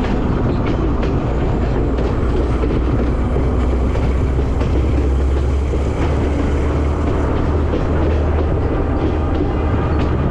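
Passenger train running along the line, heard from aboard: a steady low rumble of the carriage with faint clicks from the wheels on the track.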